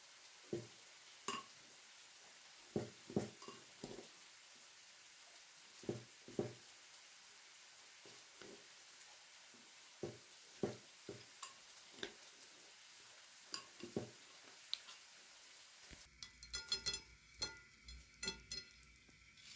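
Two metal spoons stirring a wet eggplant, chicken and yogurt mixture in a ceramic bowl: irregular clinks and knocks of the spoons against the bowl. About sixteen seconds in, the sound changes to denser light taps and crackles as fried potato sticks are set on a plate.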